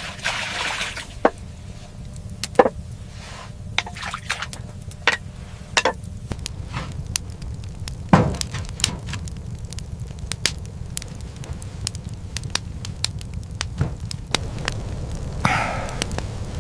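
Irregular sharp cracks and knocks over a steady low rumble, with a brief hiss at the start and again near the end.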